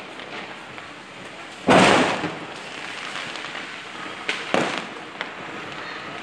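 Diwali fireworks going off: one loud bang about two seconds in, then a few smaller, sharper cracks a couple of seconds later, over a steady background of noise.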